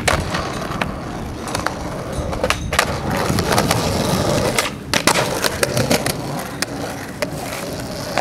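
Skateboard wheels rolling on rough concrete with a steady rumble. The rumble twice drops out briefly and is followed each time by sharp wooden clacks of the board being popped and landed in a flip trick, with lighter clicks scattered throughout.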